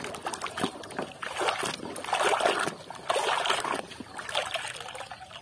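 Muddy water sloshing and splashing in a basin as a hand swishes a toy truck through it, in uneven surges, the strongest in the middle.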